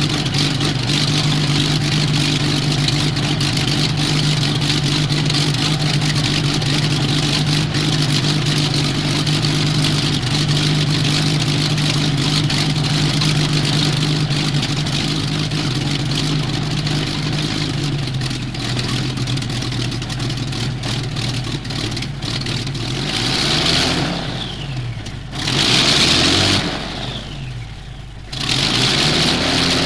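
Blackburn Skua's Bristol Perseus radial aero engine running steadily at tick over, a rough, even drone that drops slightly in pitch about halfway through. In the last several seconds it swells and fades in big surges with sweeping changes of pitch. This is a wartime recording.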